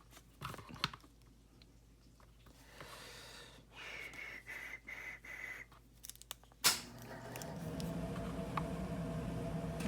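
Faint clicks and light rustling of plastic action figures being handled and set in place. About two-thirds in there is a single sharp click, and after it a steady low hum becomes louder.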